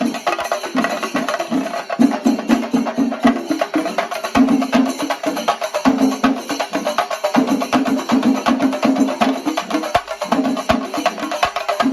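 Chenda melam, the Kerala temple percussion ensemble: chenda drums beaten in fast, dense strokes without pause, loud throughout.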